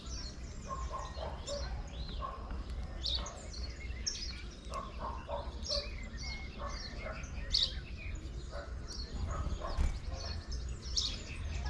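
Several small birds chirping and calling, many short, overlapping notes at irregular times, over a steady low rumble.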